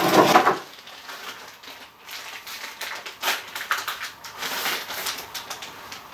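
Scattered light clicks and rustling as a small top-handle chainsaw's removed side cover and bar are handled. The noise is denser and louder in the first half-second.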